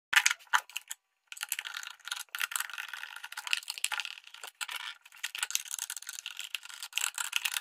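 Screwdriver unscrewing the screws from the plastic base of a Miyako blender: rapid, irregular clicking, scraping and rattling of metal on plastic, starting about a second in after a few sharp clicks.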